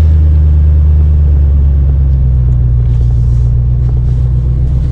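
Vehicle engine running with a loud, steady low drone that stops abruptly at the very end.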